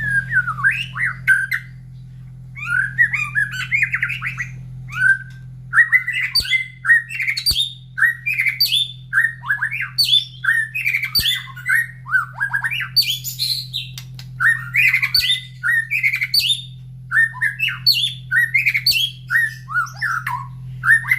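White-rumped shama singing a rapid, nearly unbroken run of short, varied phrases of sweeping notes, with one brief pause about two seconds in.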